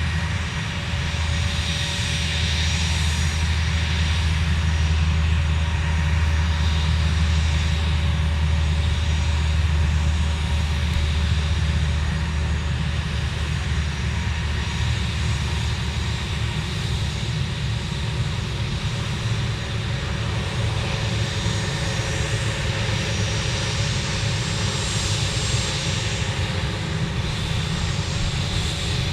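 Aircraft engines running steadily: a continuous low drone with a faint steady high whine, a little louder during the first third and then easing.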